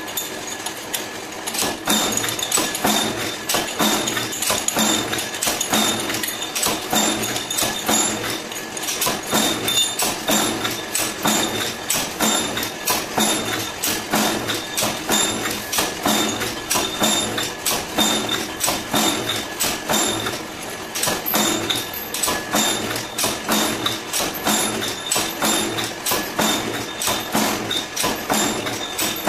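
10-ton mechanical power press running, its ram striking the die in a quick, steady rhythm of sharp metallic clanks as parts are pressed, over a steady mechanical hum. The clanking starts about two seconds in.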